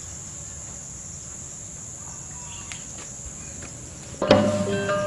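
A steady high-pitched chorus of crickets. About four seconds in, music with percussion starts suddenly and is much louder.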